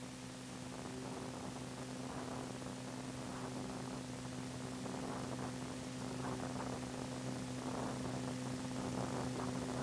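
Steady electrical mains hum with a layer of hiss, from a crude film-to-digital transfer, with faint indistinct sounds beneath it.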